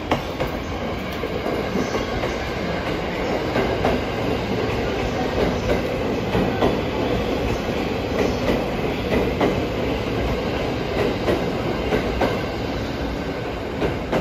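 JR East 209 series 2100-subseries four-car electric train pulling into a station track, its wheels clacking over rail joints in an irregular run of clicks over a steady rolling rumble.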